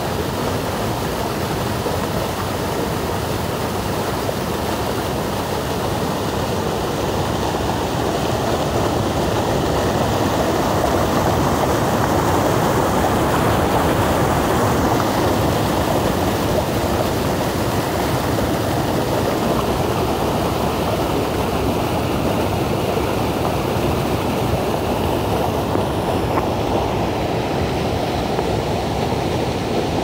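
River rapids: white water rushing over rock ledges in a steady, loud, unbroken rush, swelling slightly midway.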